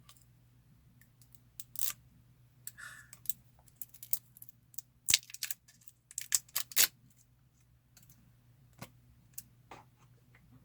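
Scattered clicks, taps and short rustles of a product's box and small spray bottle being handled, with the loudest cluster in the middle.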